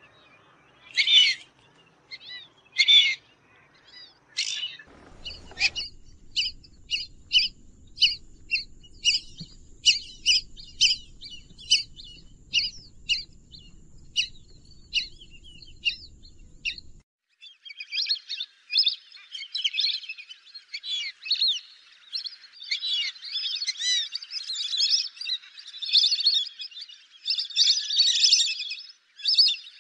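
Fulvous whistling ducks calling with repeated squeaky whistles. At first come a few loud separate calls about a second apart, then from about five seconds in a quicker run of short calls. After about seventeen seconds a dense flock chorus of many overlapping whistles follows.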